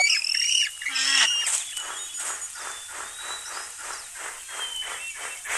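Animal call sound effects: a few quick calls with bending pitch and one falling call in the first second or so, then an even run of short noisy pulses, about three or four a second.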